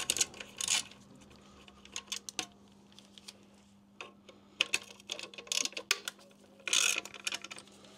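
Hand tools clicking and clinking on metal as the small T25 Torx screws holding the heat shield on a BMW motorcycle exhaust are undone. The sounds come as irregular sharp clicks with a few short rattling bursts, the longest near the end.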